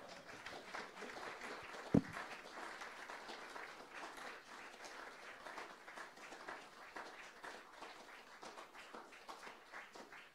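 An audience applauding with hand claps, which stop suddenly near the end. A single sharp thump, the loudest sound here, comes about two seconds in.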